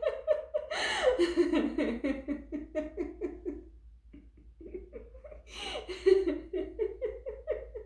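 A woman laughing deliberately in a laughter-yoga exercise. Two long runs of rapid, rhythmic ha-ha laughter each start high and fall in pitch, with a short break about four seconds in.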